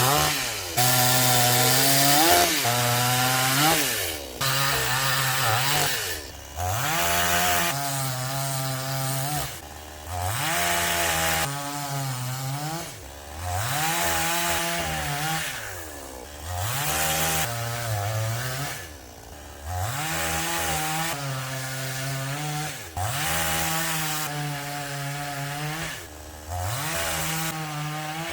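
Gasoline two-stroke chainsaw cutting dead wood, revving up to full throttle and dropping back over and over, about every two seconds.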